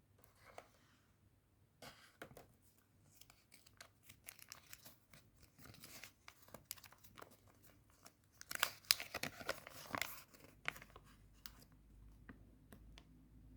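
A wrapper being torn open and crinkled by hand, a run of quick crackles and rips that is busiest about two-thirds of the way through, then thins out.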